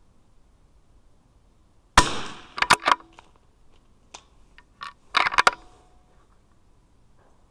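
A single .22 LR rifle shot about two seconds in, followed right away by a few quick metallic clicks and, about three seconds later, a second cluster of sharp clicks as the rifle's action is worked to clear the spent case and chamber the next round.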